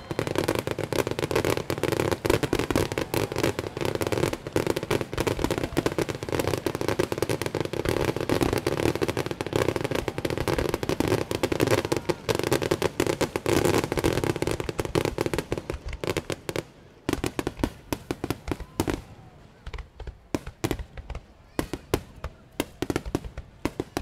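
Fireworks finale: many aerial shells bursting in rapid, overlapping bangs and crackles, thinning after about two-thirds of the way through to separate bangs a fraction of a second apart.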